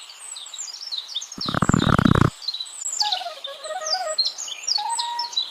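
Small birds chirping busily throughout, with a short, loud, noisy burst about a second and a half in. A soft, stepwise melody comes in around the middle, alongside the chirping.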